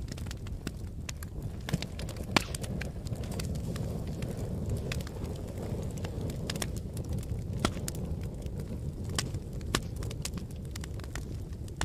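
Wood fire crackling: irregular sharp pops and snaps over a low, steady rumble of burning. The loudest pop comes a couple of seconds in.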